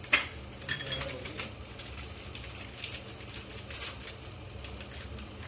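A few scattered sharp taps and clicks of items being handled, the loudest right at the start, over a low steady hum.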